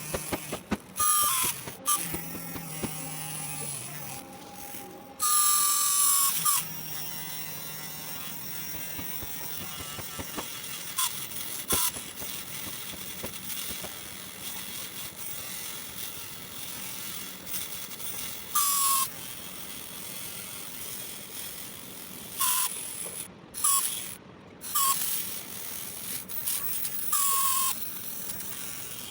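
Small DC motor of a homemade mini drill running with a steady buzzing whine. About half a dozen short, much louder bursts of whirring break in, each ending in a brief falling tone.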